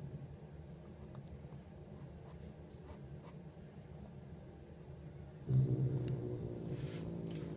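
Domestic cat rumbling low in its throat, a steady pitched rumble that swells much louder about five and a half seconds in, with faint scratchy clicks and rustles.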